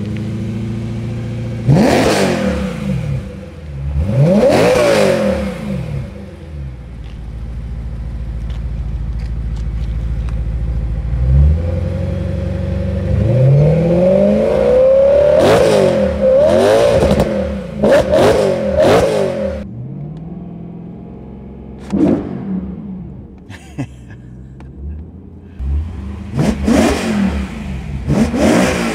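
BMW S65 4.0-litre V8 with high-duration camshafts and valvetrain upgrades idling just after a cold start, with the lumpy, choppy idle those cams give. It is blipped about eight times, with four quick revs in a row around the middle.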